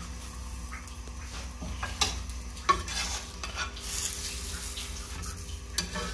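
A bun burger sizzling faintly as it toasts on a hot iron tawa. A slotted metal spatula scrapes and clicks against the griddle a few times, sharply, as the burger is lifted off.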